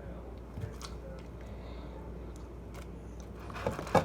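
Quiet room with a low steady hum, broken by a few faint clicks and small knocks from handling things on a table; one sharper knock near the end.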